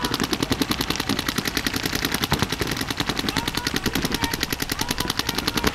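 Paintball markers firing in a rapid, even stream of shots, about ten a second.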